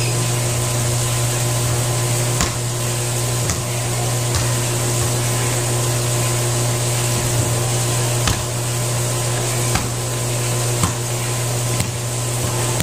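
Steady mechanical hum with a strong low drone, broken by a few scattered sharp knocks.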